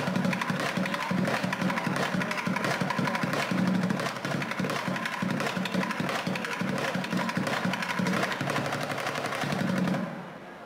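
Fast bucket drumming: wooden drumsticks striking upturned plastic buckets in a dense, rapid stream of hits. The playing stops about ten seconds in.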